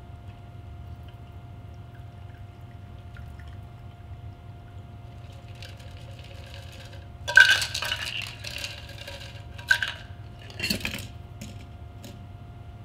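A shaken cocktail is strained from a metal shaker into a coupe glass: a soft trickle of liquid, then metal shaker tin and strainer clinking loudly with a ringing note about seven seconds in, another sharp clink, and a knock as the tin is set down. A steady faint hum runs underneath.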